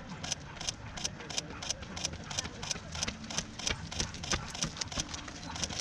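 Footsteps of a runner in running shoes on asphalt: sharp, regular slaps about three a second, over a low steady rumble.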